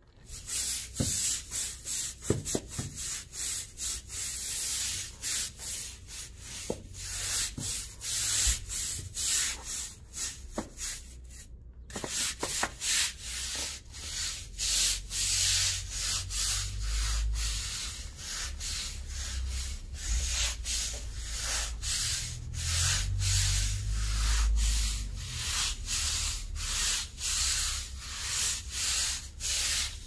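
Stiff-bristled deck brush scrubbing wet, soapy concrete in quick back-and-forth strokes, about two a second, with a brief break about twelve seconds in.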